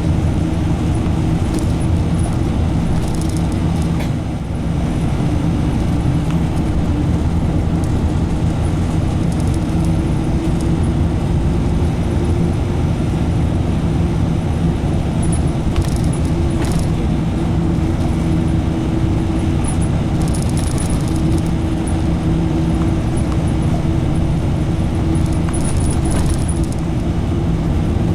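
Inside a moving route bus: steady engine drone and road noise, with occasional light rattles from the cabin.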